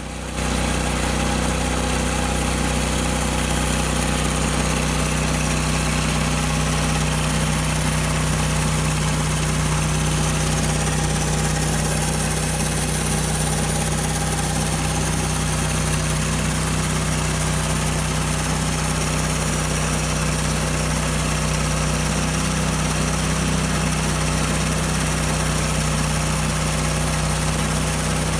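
Gasoline engine of a portable bandsaw mill running at a steady speed, with an even hum and no change in pace.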